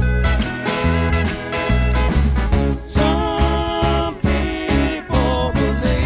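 Live country jam band playing an instrumental break, a guitar-led melody over a full band with a steady beat.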